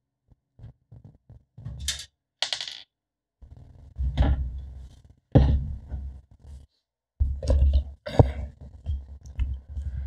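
Screwdriver and small metal screws clicking, rattling and scraping inside an empty metal computer case: light ticks at first, a couple of sharp rattles about two seconds in, then several heavier knocks and thuds as the case is handled.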